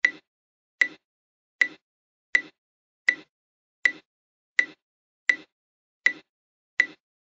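Oticon hearing aid click sound effect: short, sharp clicks repeating evenly about every three-quarters of a second, ten in all, with dead silence between.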